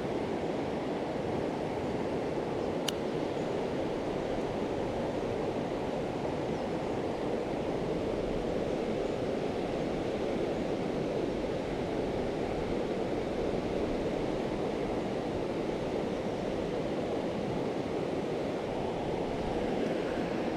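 Steady rush of a flowing river, an even noise with no change in level.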